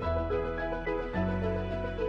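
Instrumental background music: a melody of short notes over held bass notes that change about once a second.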